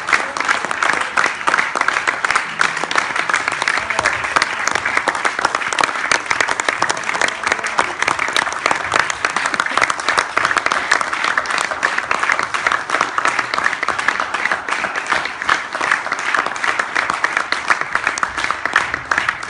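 Concert audience applauding: many hands clapping in a dense, steady stream without a break.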